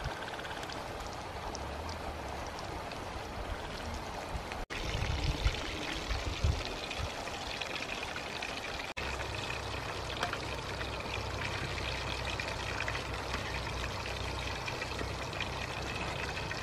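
Chicken pieces deep-frying in hot oil in an aluminium kadai, a steady sizzle and bubbling, with a couple of brief knocks about five and six seconds in.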